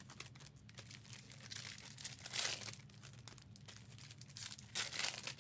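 Faint crinkling and rustling of plastic wrapping being handled, with light clicks and two louder rustles, about halfway through and near the end.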